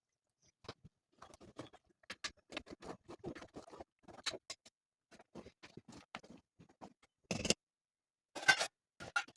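An irregular run of short clicks and taps, densest in the first half, with a few louder knocks near the end.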